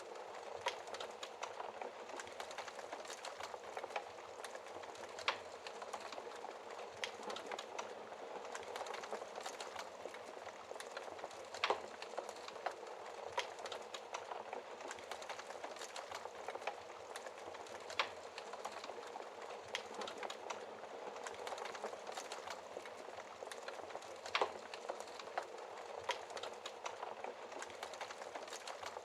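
Fire burning in a fireplace: a steady soft crackle with frequent small snaps and a few louder pops spaced several seconds apart.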